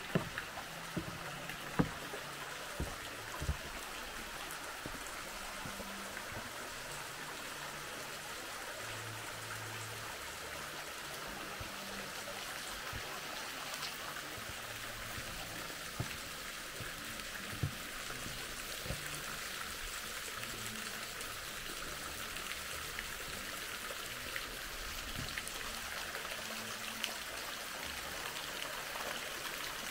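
Steady trickle of running water, with a few soft knocks in the first few seconds.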